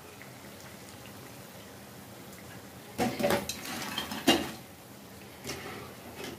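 A wire-mesh skimmer knocks and clinks against a steel kadhai and a plate as fried potato bhajiye are lifted out of the oil. A cluster of sharp knocks comes about three seconds in and a lighter one about two seconds later. Before that there is only a faint steady sizzle of the hot frying oil.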